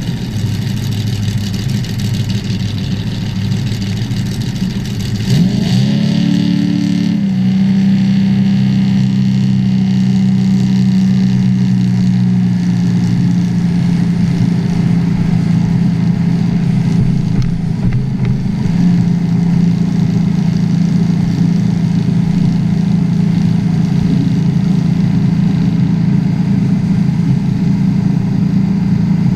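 Drag boat's open-headered inboard engine running under load. About five seconds in the throttle opens and the pitch rises, then it holds a steady cruise, driven gently because the engine is still being broken in. A steady rush of wind and water runs under it.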